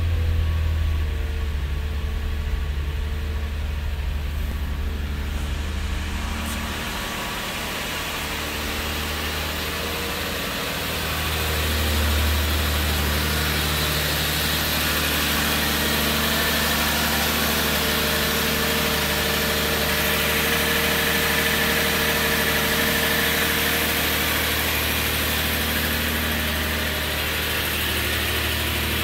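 2008 Subaru Tribeca's 3.6-litre flat-six engine idling steadily with a low, even hum, a little louder from about twelve seconds in.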